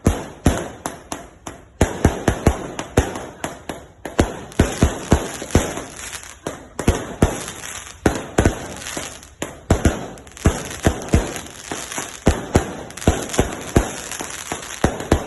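Fireworks going off in a rapid, continuous barrage: sharp bangs and cracks several times a second, some overlapping, each with a short echoing tail.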